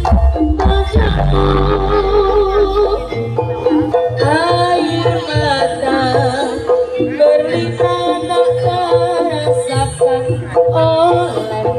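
Loud live Javanese bantengan accompaniment played through a large PA sound system. A deep bass note holds for the first three seconds, then a steady low drum beat comes in under a wavering, sliding melody line.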